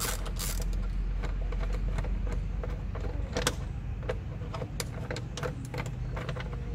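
Scattered clicks and light metal taps of a bit screwdriver working a fairing screw loose on a Yamaha R15 V3's lower side panel, one sharper click about three and a half seconds in, over a steady low rumble.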